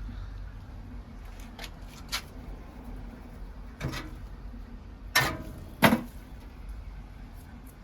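A handful of knocks and clunks from things being handled, the two loudest about five and six seconds in, the first of those leaving a brief metallic ring, over a steady low rumble.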